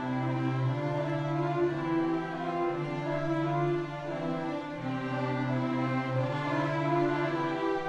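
String chamber orchestra playing, violins and cellos sounding long held notes over a sustained low line.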